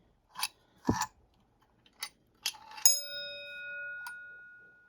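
A few light clicks and knocks from the Simplex 4027 bell's striker mechanism, then the striker hits the 6-inch gong once, about three seconds in, and the gong rings out with a clear tone that slowly fades.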